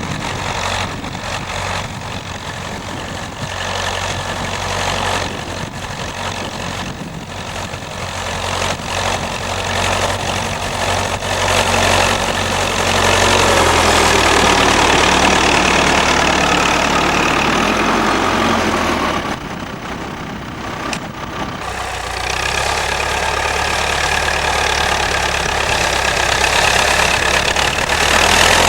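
Massey-Ferguson 65 tractor engine running steadily. About halfway through it gets louder and its note drops a little. A couple of seconds later it goes quieter briefly, then picks up again.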